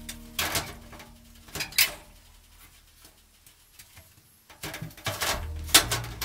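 Sharp knocks and clatters of a glass door pane being handled and set into an aluminium sliding-door frame, in two clusters with a quieter gap between, over background music that fades out and comes back near the end.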